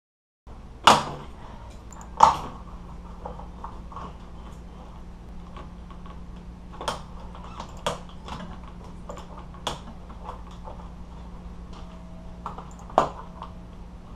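Sharp clicks and knocks of tools and plastic trim parts being handled while a car seat back is taken apart. Two loud knocks come near the start and another near the end, with lighter clicks between them, over a steady low hum.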